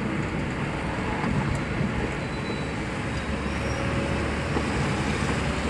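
Steady engine and tyre noise heard from inside a moving car's cabin, even throughout with no single event standing out.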